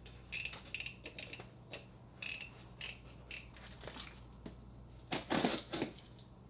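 A cardboard shipping box being opened by hand: a quick run of scratchy rasps and clicks, some with a thin squeak like packing tape being pulled and torn, then a louder scrape about five seconds in.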